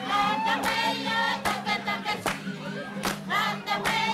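Kiribati group song: women's voices singing together in chorus, with sharp percussive beats about every three-quarters of a second.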